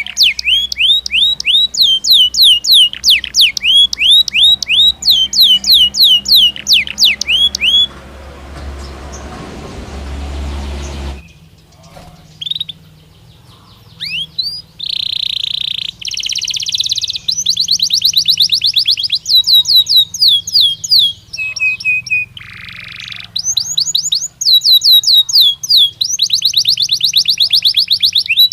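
Belgian canary singing: long runs of fast, repeated falling notes and rolling trills, high-pitched and loud. About eight seconds in the song stops for a few seconds of soft rustling noise, then resumes in varied phrases of trills and held notes.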